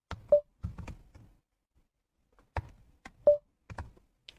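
Computer keyboard typing: two short runs of keystroke clicks, separated by a pause of about a second.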